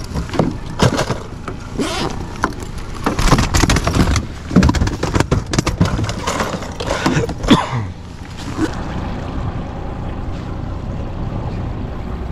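Boat's Honda 30 hp four-stroke outboard running with water and wind noise, a steady low rush. Over the first eight seconds or so a busy run of knocks and rattles sits on top, the loudest about seven and a half seconds in, after which only the steady running noise is left.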